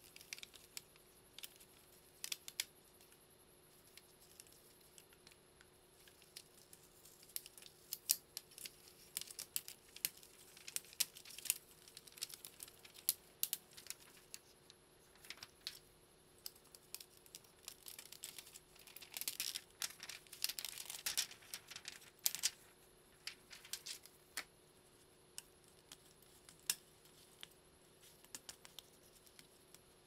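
Clear plastic membrane sheets of an IBM Model M keyboard being handled and pulled apart: light crinkling and rustling with scattered small taps and clicks, thickening into a longer run of crinkling about two-thirds of the way through.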